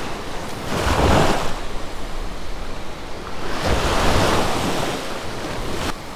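Small waves breaking and washing up a sandy beach at the water's edge, swelling twice, with wind buffeting the microphone.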